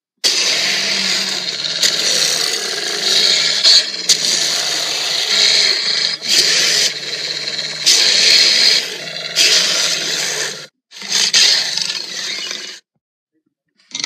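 Custom monster roar sound effect mixed from film creature roars: long, harsh roars with several louder surges, breaking off briefly near eleven seconds, then a shorter roar that cuts off abruptly about a second before the end.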